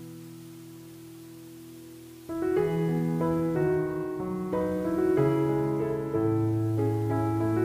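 Background piano music: a held chord fades away over the first two seconds, then a new phrase of single notes begins over sustained low bass notes.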